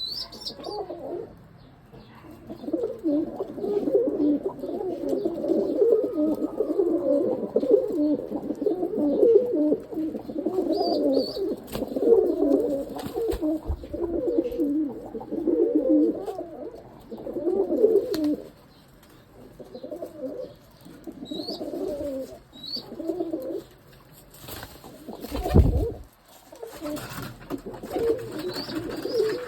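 Domestic pigeons cooing, several at once in overlapping calls that thin out to scattered coos in the second half, with a few faint high chirps. Near the end there is a single low thump.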